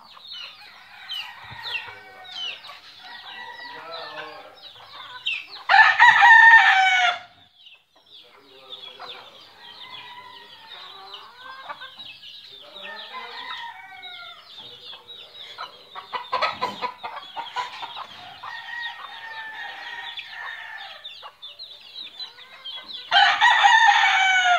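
Rooster crowing twice, about six seconds in and again near the end, the loudest sounds, over a flock of hens and chicks clucking and cheeping throughout.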